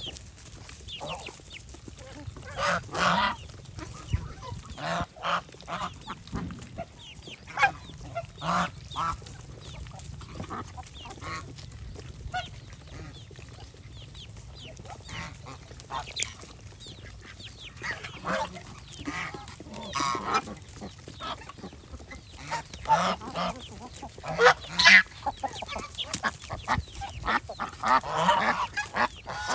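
A flock of domestic geese honking: many short, irregular calls from several birds, louder in clusters at times.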